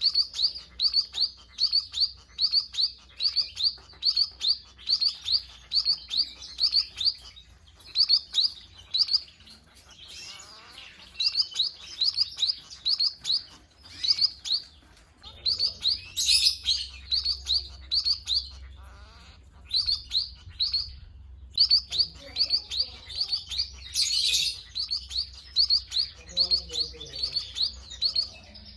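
Munias (emprit) chirping: rapid runs of short, high chirps, about three a second, with brief pauses between runs, the call used as a lure to attract munias.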